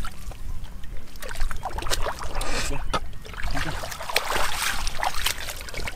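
Hands sloshing and splashing through shallow muddy water and mud, groping for fish, in many irregular short splashes.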